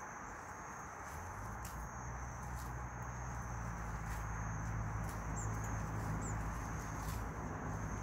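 Insects trilling steadily in a single high tone over a constant background hiss. A low, steady hum joins in about a second in and keeps on.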